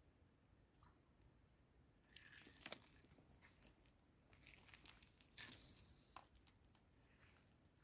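Near silence with a steady high-pitched insect drone, broken by faint rustles and clicks, the loudest a short rustle about five and a half seconds in.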